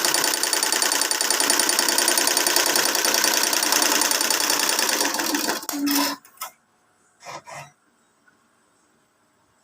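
Single-head computerized embroidery machine stitching at speed with a fast, even mechanical clatter that stops about five and a half seconds in. A brief low hum follows as it halts, then two short sounds, then it goes quiet.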